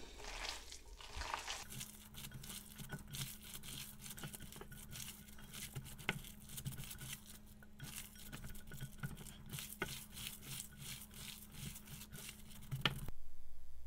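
Wet squelching of raw ground beef, rice, onion and egg filling being kneaded and squeezed by hand in a glass bowl: a quick, irregular run of soft squishes that stops suddenly near the end.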